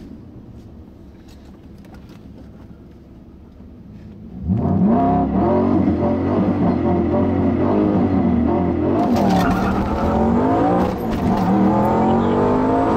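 Audi S4's 4.2-litre V8 with a rear-mounted turbo, heard from inside the cabin. It runs low and steady while staged, then about four seconds in it goes to full throttle on a drag-strip launch, much louder. The revs climb and drop again and again as it is shifted up through the gears.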